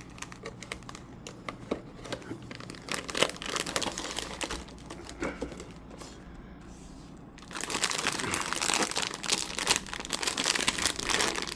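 Blind-box toy packaging being handled: light taps and rustles, then about two-thirds of the way in a loud continuous crinkling of plastic or foil wrapping being worked open.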